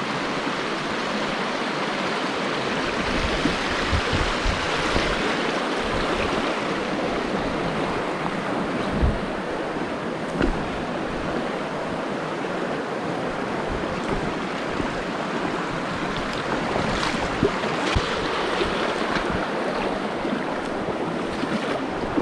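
Steady rush of a mountain stream's flowing water, with a few brief knocks now and then.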